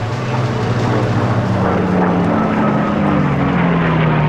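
Propeller-driven piston-engine fighter planes flying past, their engines running with a steady drone. About halfway through the pitch slides downward as they pass.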